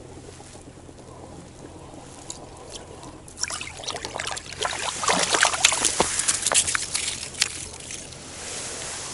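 A roach splashing in the water of an ice-fishing hole as it is hand-lined up and out, a run of wet splashes and sloshing that starts about three seconds in and lasts several seconds.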